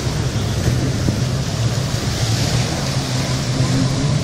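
Jet ski engine running with a steady low drone, over a constant rush of wind and water.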